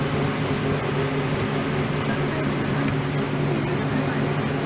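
Electric commuter train standing at the platform with its onboard machinery running: a steady low hum with several held tones over an even noise.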